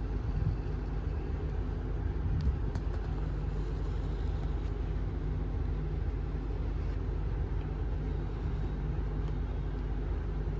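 Steady low background rumble with a few faint ticks, with no clear event standing out.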